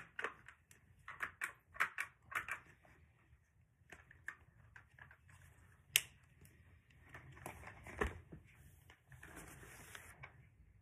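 Hot Wheels plastic track pieces clicking and clattering as they are handled, with one sharp click about six seconds in and a brief rustle near the end.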